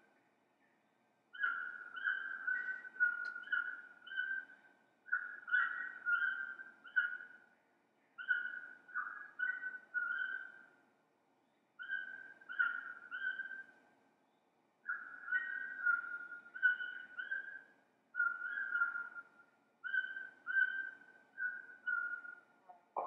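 Whistling: short, clear notes at nearly one pitch, in quick phrases of three to five with short pauses between.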